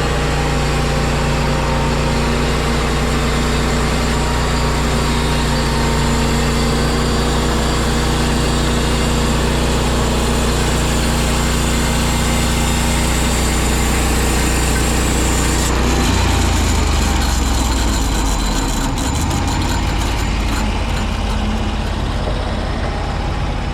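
A large engine running steadily, its note changing about two-thirds of the way through.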